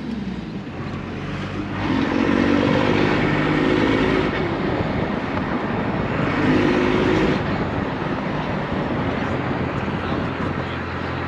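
1997 Dodge Ram 2500's 12-valve Cummins inline-six diesel pulling the truck under acceleration, through a freshly swapped NV4500 manual gearbox, with road and wind noise. The sound swells loudly about two seconds in and again around six to seven seconds, then eases back.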